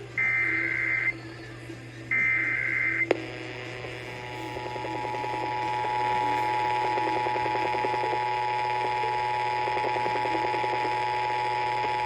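Emergency Alert System SAME header: two one-second bursts of warbling digital data tones, a second apart. About three seconds in, a click, then the steady two-tone EAS attention signal begins. Together they mark the start of an Emergency Alert System message, here a Required Monthly Test.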